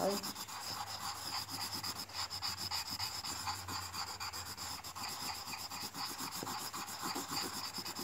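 Red colored pencil scribbling rapidly back and forth on paper, colouring in an area with quick, even scratchy strokes.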